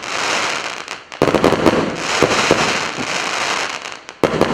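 A 100-shot fireworks battery (cake) firing: a dense hissing crackle studded with sharp pops, with two sudden loud surges as new shots go off, about a second in and near the end.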